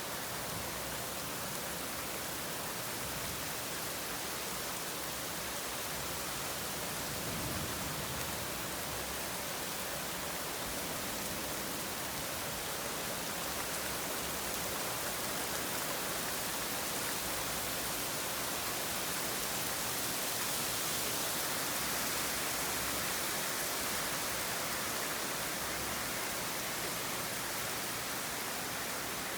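Steady heavy rain falling during a thunderstorm, a dense, even hiss that swells a little about two-thirds of the way through.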